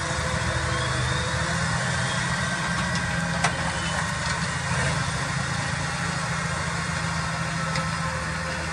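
Case Optum 270 tractor's diesel engine running steadily under load as it pulls a slurry tanker and disc injector through grassland, with a steady higher whine over it. A single sharp click comes about three and a half seconds in.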